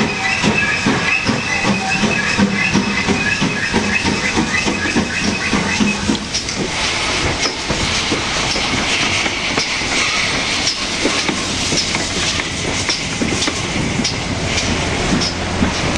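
GWR 4575 class small prairie tank engine No. 5526 running slowly past at close range, its exhaust beating in an even rhythm while a high wavering wheel squeal sounds over the first few seconds. About six seconds in, a loud hiss of steam and quick clicks of wheels over rail joints take over as it draws alongside.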